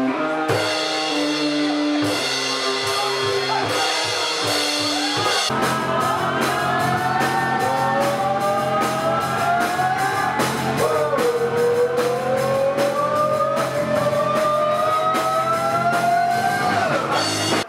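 Live alt-rock band playing: electric guitars, bass and drum kit, with a man's voice singing long gliding notes from about five seconds in.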